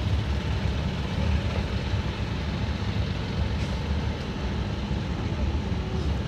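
Small passenger boat's engine running steadily as the boat cruises, a continuous low rumble.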